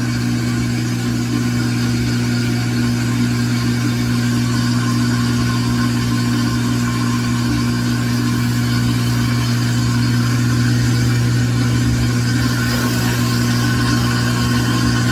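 LG washer's drive motor spinning the empty basket on a spin test, a steady hum that grows slightly louder partway through.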